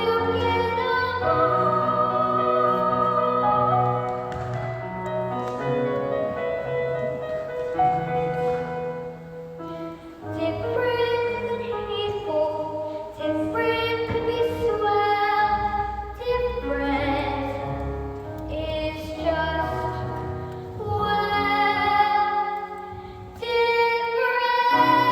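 Singing with instrumental accompaniment in a musical number, the voice holding long notes.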